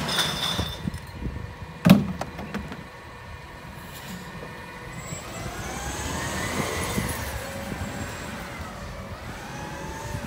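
Rear-loader garbage truck: a sharp bang at the hopper about two seconds in, then the diesel engine rising in pitch and easing off again as the truck pulls away.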